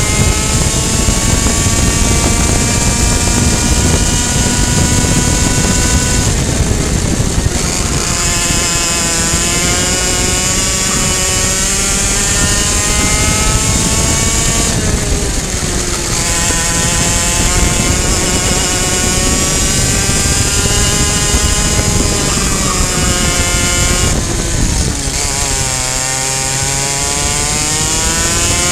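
Racing kart's two-stroke engine at high revs from on board: the pitch climbs steadily as it accelerates down the straights and falls off sharply three times as the driver lifts and brakes for corners.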